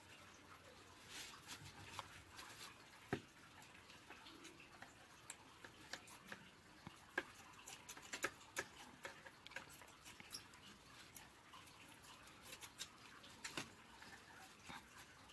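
Faint, scattered clicks and rustling of nylon netting and a plastic dustpan frame being handled and trimmed, with a few sharper ticks along the way.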